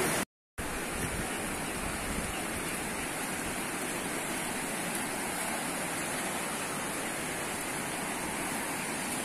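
Muddy floodwater rushing steadily over flooded rice paddies and a field path, swollen by heavy rain. The sound cuts out completely for a moment about half a second in.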